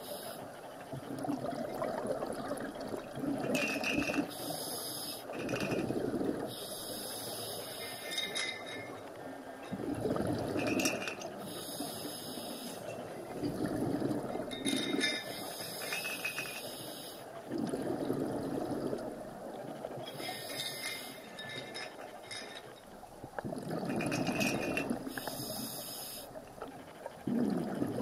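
Scuba diver's breathing recorded underwater: a regulator hiss on each breath alternating with rushing bursts of exhaled bubbles, about one breath every three to four seconds.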